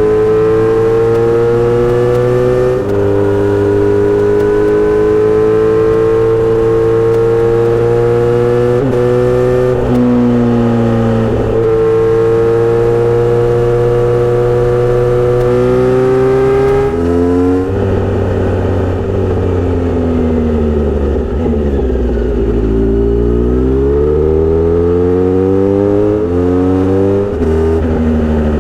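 Kawasaki Z900RS inline-four running through a Misty Kintaro short-pipe aftermarket muffler while ridden. The exhaust note holds fairly steady with a few shifts in pitch, falls away as the bike slows about two-thirds of the way in, then climbs again through several gear changes.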